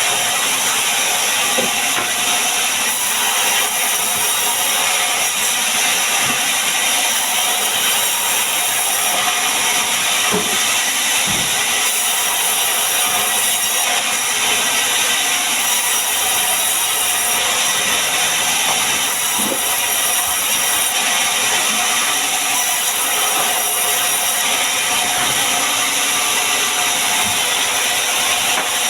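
A woodworking power tool running steadily on wood, a continuous loud whirring hiss with no pauses.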